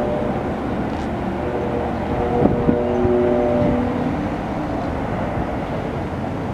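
Air horn of a NJ Transit Comet V cab car, a K5LA five-chime, blowing for a road crossing on an approaching train: the tail of one blast at the start, then one long steady chord from about a second and a half in to about four seconds in. Wind rumbles on the microphone throughout, with two short knocks in the middle of the long blast.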